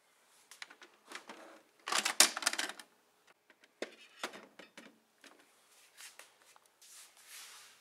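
Hard plastic toys being handled and moved on a plastic playset: a quick clattering run of clicks about two seconds in, the loudest part, then scattered clicks and light rubbing.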